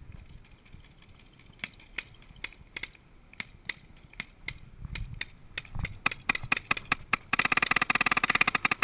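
Paintball markers firing: scattered single shots that come more and more often, then a fast, continuous burst of rapid fire for about the last second and a half.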